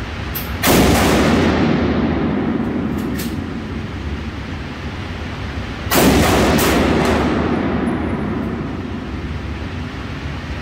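Two AR-15 rifle shots fired in an indoor range, about five seconds apart, each a sharp crack that trails off over a couple of seconds of echo.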